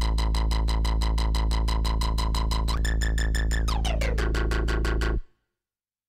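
Reveal Sound Spire software synthesizer playing a factory bass preset: a deep, sustained bass note with a fast rhythmic pulsing. Near the three-second mark a higher tone jumps up, holds, then glides back down. The sound cuts off suddenly about five seconds in.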